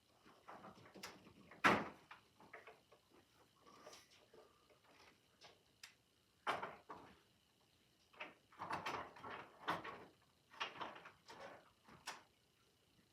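Handling noises: scattered knocks, scrapes and light clatter as vacuum cleaners are moved and set onto a display shelf. The sharpest knock comes just under two seconds in, with a busier run of clunks and rustles in the second half. No vacuum motor is running.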